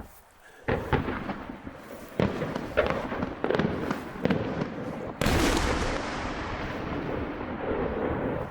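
Aerial fireworks shells bursting over the harbour: a run of sharp bangs, then one big burst about five seconds in whose rumble and crackle carry on to the end.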